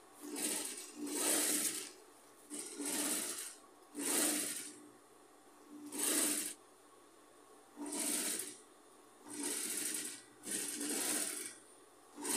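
Industrial sewing machine stitching folded fabric points onto a rug base in short runs of about a second, starting and stopping eight or nine times as the fabric is repositioned between runs.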